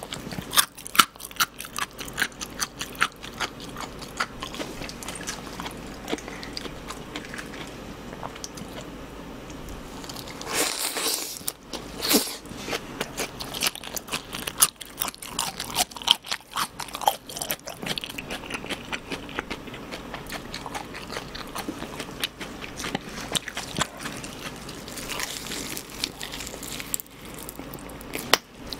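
Crisp fried chicken crust being bitten and chewed close to the microphone: a dense run of sharp crunches, loudest about a third of the way in.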